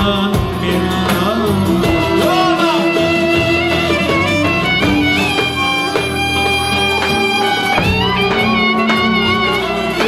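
Live Turkish folk ensemble playing a melody with long held notes on violins, clarinet, plucked lutes and kanun.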